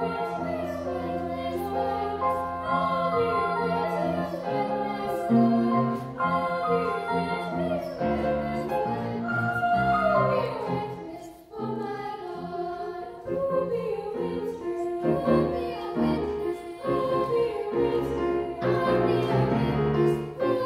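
A choir of choristers singing, with long held notes and a brief break about halfway through.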